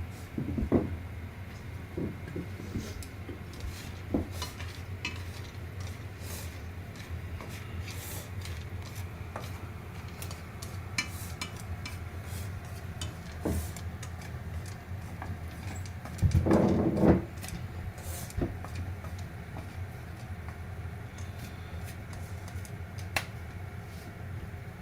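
Kitchen utensils and dishes clinking and knocking over a steady low hum, with a louder clatter about two-thirds of the way through.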